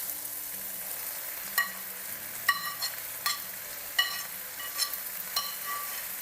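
Chicken and vegetables sizzling in a frying pan while being stirred, with a steady hiss and about seven sharp knocks of the utensil against the pan that ring briefly.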